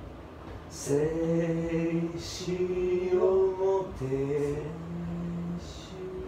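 A man's voice singing long, held notes with no accompaniment, starting about a second in, with short breaths or hissed consonants between the notes: a rough vocal take for a band demo.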